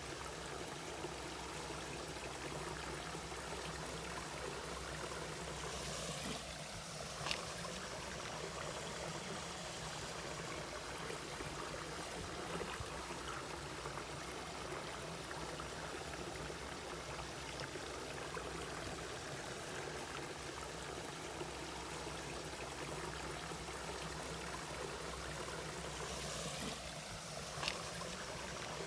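Mountain valley stream flowing steadily over rocks, with a brief sharper tick about seven seconds in and again near the end.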